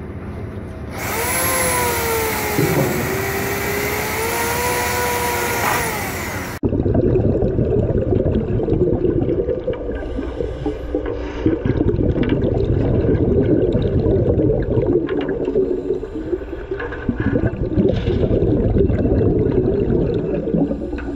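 A chainsaw cutting yellowfin tuna, its motor pitch dipping and rising as it bites. About six seconds in it cuts off suddenly to a muffled underwater rushing and gurgling of a scuba regulator and exhaled bubbles.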